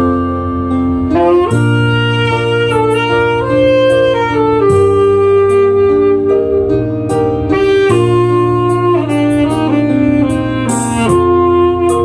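Alto saxophone playing a melody of long held notes over a recorded backing accompaniment with sustained low bass notes.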